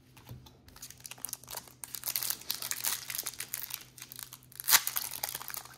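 Foil trading-card pack wrapper crinkling as it is handled, in a run of dense crackles with the sharpest one about three-quarters of the way through.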